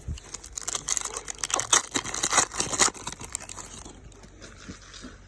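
Crinkling and tearing of a Donruss baseball card pack's wrapper as it is ripped open, a dense run of sharp rustles that is loudest in the middle and stops about four seconds in.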